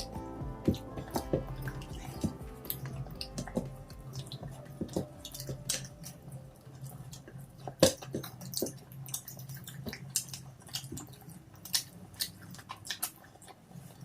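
People chewing and biting fried chicken lollipops and pakoda at close range, with irregular wet clicks and smacks. Faint background music runs under it.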